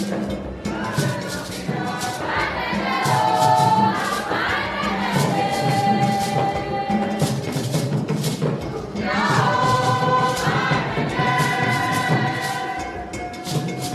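Music: voices singing together in chorus, holding long notes, over a steady drum beat.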